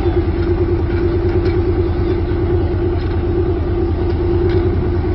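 Tiger II tank's engine idling steadily: a fast, low pulsing with a steady hum above it.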